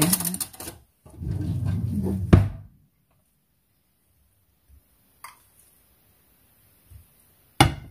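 Kitchen handling sounds while ingredients are laid out on a counter: about a second and a half of rustling with a sharp knock, then near quiet broken by a faint click, and a loud sharp knock near the end.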